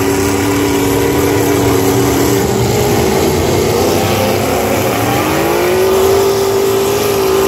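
Demolition-derby trucks' engines running hard under throttle, a steady engine drone with one engine rising in pitch about five seconds in and holding there.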